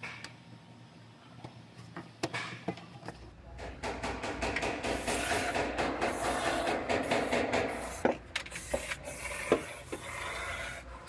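Aerosol can spraying through an extension straw into holes in a car's rear floor rail: a steady hiss for several seconds, then shorter spurts near the end. Before that, a few light clicks and rustles as pads are handled.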